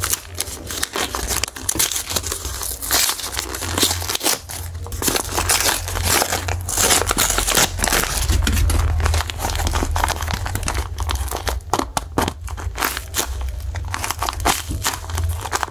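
Paper crumpling and crinkling as a homemade paper blind bag is unwrapped by hand, in quick irregular rustles with some tearing, and the paper-and-tape squishy inside is handled.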